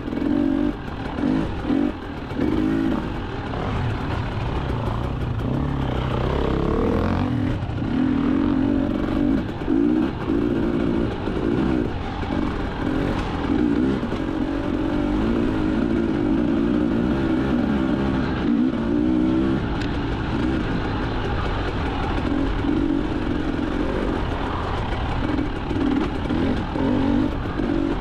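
Enduro motorcycle engine ridden off-road, the revs constantly rising and falling as the throttle is opened and shut, with many brief dips as it is backed off.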